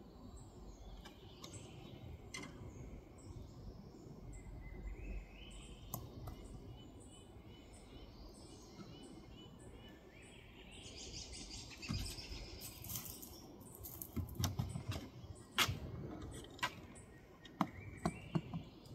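Small birds chirping repeatedly in the background, with a few sharp taps and knocks, the loudest coming in a cluster in the last few seconds.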